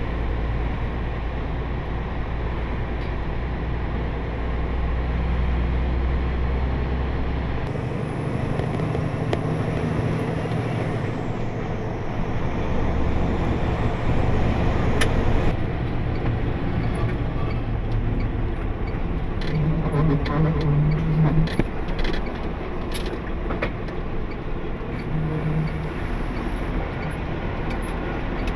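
Diesel engine and road noise of a heavy International rollback tow truck driving, heard from inside the cab as a steady low drone. The drone changes abruptly a few times, with a few sharp ticks later on.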